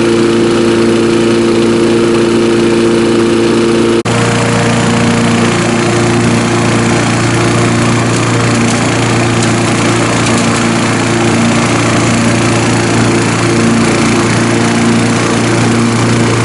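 Single-cylinder Briggs & Stratton 3.5-horsepower flathead engine on a push lawn mower running steadily under load as the mower is pushed across grass. About four seconds in, the sound drops out for an instant and comes back with a different tone.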